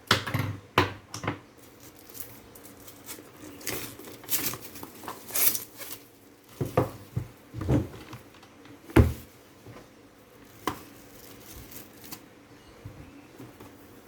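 A sealed retail package being handled and worked open: irregular crinkling and rustling of the packaging with sharp clicks and knocks, the loudest about nine seconds in, settling to quieter handling near the end.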